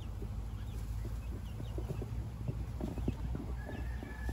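Backyard chickens and turkeys clucking and peeping softly, with short high chirps scattered through, over a steady low rumble.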